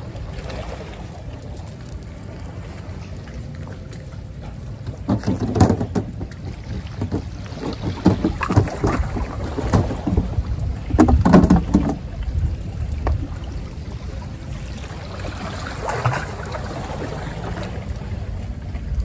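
Steady low rumble of wind on the microphone, with a few short knocks and rustles of handling between about five and twelve seconds in.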